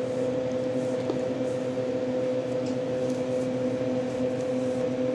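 A steady mechanical hum with a constant pitch, with a faint click about a second in.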